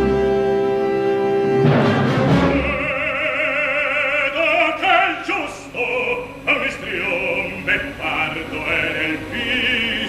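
Orchestra holds a chord, strikes a loud accent about two seconds in, then an operatic baritone sings with wide vibrato in broken phrases over the orchestra, in Italian.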